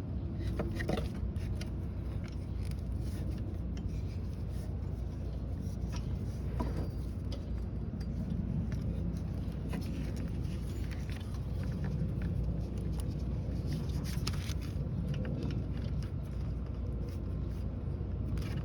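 Suzuki Jimny JB23's engine running steadily, with scattered clicks and scrapes of handling over it.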